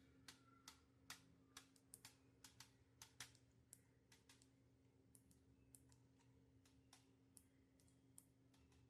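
Near silence, with faint, irregular small clicks, about one or two a second, over a low steady hum.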